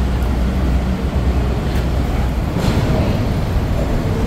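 Steady low rumble of running vehicle engines and road traffic, with a couple of faint clicks midway.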